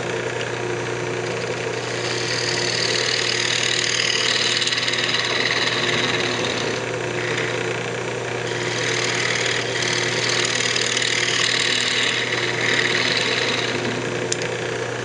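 Wood lathe running with a steady hum while a fingernail-grind gouge cleans up the bottom of a spinning maple blank. The cut is a hissing scrape from about two seconds in until near the end, easing off briefly a few times.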